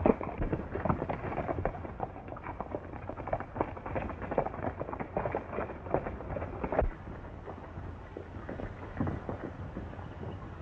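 Hoofbeats of several horses ridden at a brisk pace, a dense, uneven clatter that thins out after about seven seconds, heard on an old film soundtrack with the top end cut off.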